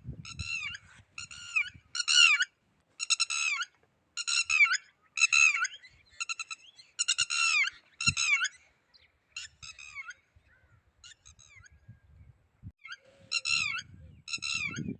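Red-wattled lapwing calling over and over: short, sharp, piercing notes in quick groups, roughly one call a second, growing fainter around the middle and louder again near the end.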